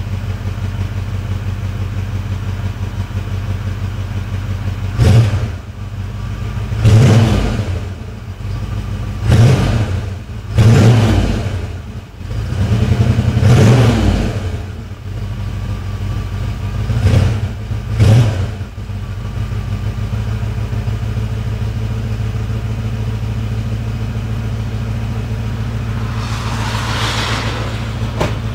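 1985 Ford Mustang GT's 5.0-litre V8 on its stock exhaust, idling on a cold engine after two months standing. It is revved in about seven quick throttle blips that rise and fall back, then settles back to a steady idle.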